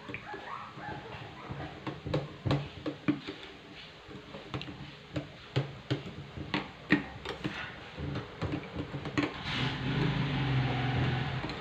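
Kitchen utensils clinking and knocking irregularly, about two light strikes a second, with a steadier rushing noise and low hum rising near the end.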